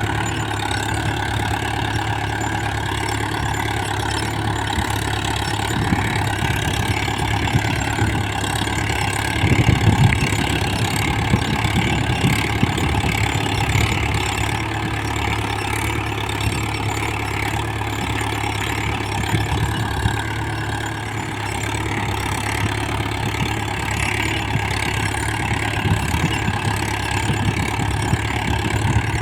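Mahindra Yuvo 415 DI tractor's four-cylinder diesel engine running steadily at an even speed, swelling briefly louder about ten seconds in.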